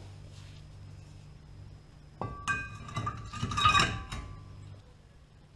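Metal brake parts and hand tools clinking and clanking, a few sharp strikes from about two seconds in, each leaving a short metallic ring, over a low steady hum.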